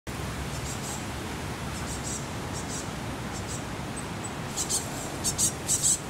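Great tits giving short, high chirps: a few faint ones at first, then a louder quick cluster in the last second and a half.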